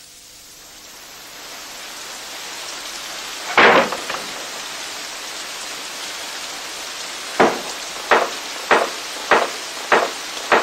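Recorded rain sound fading in as the intro of a song, with one loud sharp crack about three and a half seconds in. From about seven seconds in comes a steady series of sharp knocks, under two a second.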